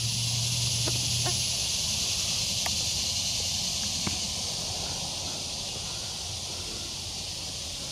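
Steady high-pitched hiss of an insect chorus, slowly fading, with a few faint light clicks.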